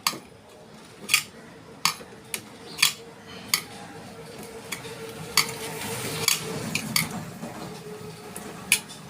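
Sharp metal clinks of a spanner on the safety-valve nut of a pressure cooker lid as the old, burst valve is unscrewed. The clinks are irregular, about one every half second to a second, with a faint steady tone through the middle.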